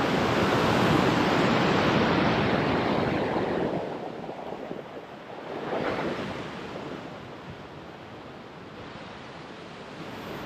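Ocean swell washing up against a rock ledge: a loud surge of whitewater in the first three or four seconds that fades away, then a smaller surge about six seconds in.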